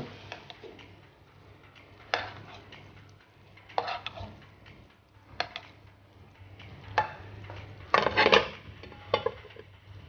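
A metal fork clinks against a nonstick frying pan several times while breaded fish fillets fry gently in butter. Near the end comes a louder clatter as a glass lid is set on the pan.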